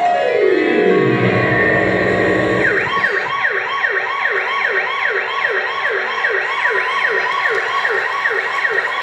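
Recorded siren ringtone played back: first a falling electronic glide that drops to a low hum within about a second and a half, then, from about three seconds in, a fast wailing siren effect sweeping up and down about two and a half times a second.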